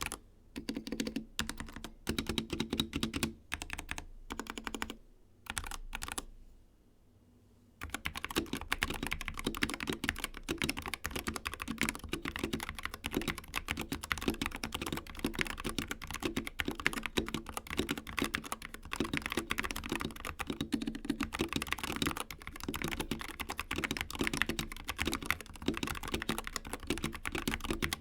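Typing on a Corsair K65 Pro Mini keyboard with Corsair OPX linear optical switches: a few short bursts of keystrokes, a pause of about a second, then fast continuous typing from about eight seconds in.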